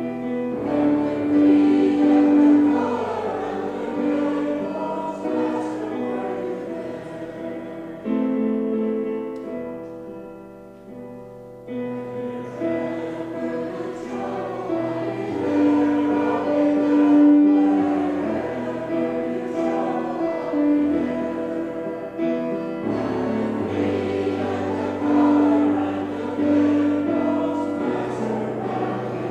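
A choir or congregation sings a hymn verse by verse with instrumental accompaniment. The singing drops to a quieter held passage between verses about eight seconds in, then resumes.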